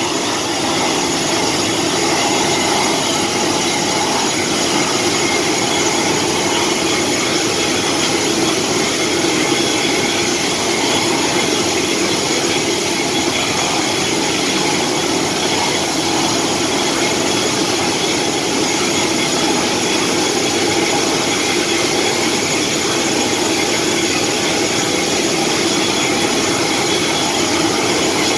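An engine running steadily with a whine over a broad rushing noise, unchanging throughout.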